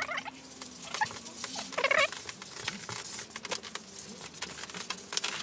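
A cloth pad rubbed back and forth over a bare ash tabletop, a rapid scuffing patter with a few short squeaks, the loudest about two seconds in.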